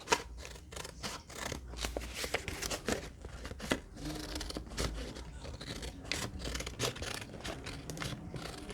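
Scissors cutting paper in a run of quick, irregular snips.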